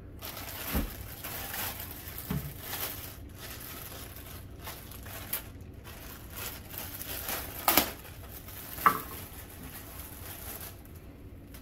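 Clear plastic bag crinkling and rustling as it is pulled off a cylindrical air purifier filter, with a few louder sharp crackles. The crinkling stops shortly before the end.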